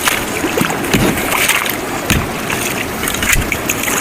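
Water splashing around a canoe, with a few dull knocks about a second apart.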